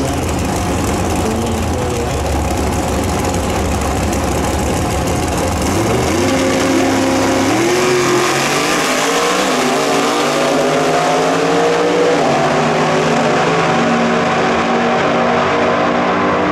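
Two gasser drag cars, one a 1937 Chevrolet coupe, rumbling loudly at the starting line. About six seconds in they launch, and their engines climb in pitch in stages as they accelerate away down the strip.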